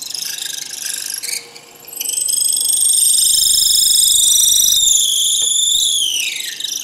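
Drill press boring a deep hole in a wooden block with a long 1/4-inch bit. About two seconds in, a loud high whine sets in, and near the end its pitch falls steeply as the machine slows.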